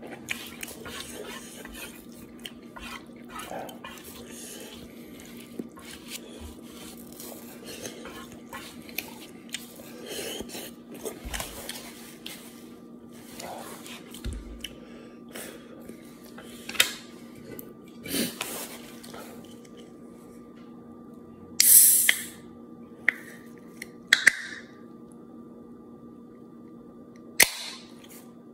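Quiet chewing, with chopsticks tapping and scraping a frying pan, over a faint steady hum. In the last few seconds a soda can's tab is worked open, giving a few sharp clicks and short hisses.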